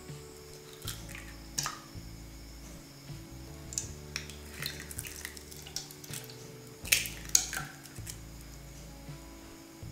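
Eggs cracked on the rim of a plastic bowl and dropping in, with sharp cracks, wet plops and drips, over soft background music. The loudest cracks come twice about seven seconds in.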